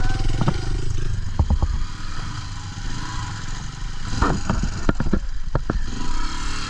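Dirt bike engine running low and steady, with sharp knocks and clatter scattered through it, several in quick succession about four to five seconds in, as the bike is worked over rough ground.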